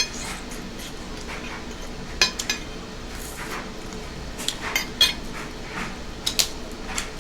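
Cutlery clinking and tapping against a plate while eating, in a string of irregular sharp clicks.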